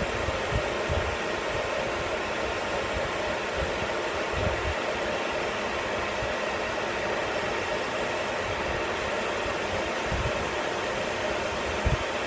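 Metal lathe running steadily while an emery pad is held against the spinning steel bend die to polish it, giving an even whirring hiss with a faint steady hum. A few brief low thumps come through, the loudest near the end.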